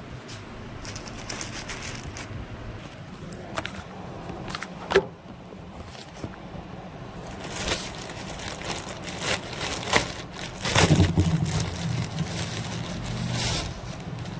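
Plastic courier mailer being cut and torn open by hand: crinkling and rustling of the plastic and packing tape with scattered sharp clicks, busiest in the second half. A steady low hum runs underneath.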